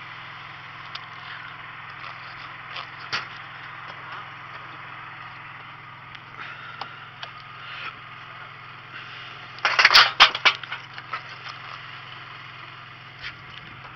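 A steady low machine hum aboard a small boat, with scattered knocks and a loud burst of clattering and scraping about ten seconds in, as gear is handled against the boat's deck and rail.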